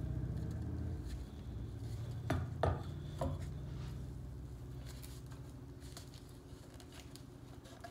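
Handling of a shotgun cleaning rod as a paper towel is twisted onto its end: three light clicks about two to three seconds in, over a low steady hum that slowly fades.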